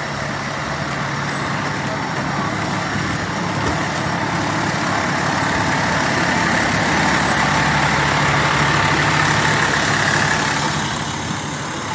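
Fire engine driving slowly past, its diesel engine running, growing louder to a peak about seven seconds in and then fading as it moves away.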